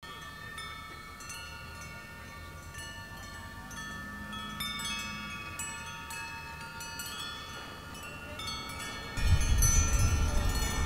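Metal tube wind chimes ringing, with overlapping notes struck again and again and left to ring on. About nine seconds in, a low rumbling noise comes in suddenly and louder under the chimes.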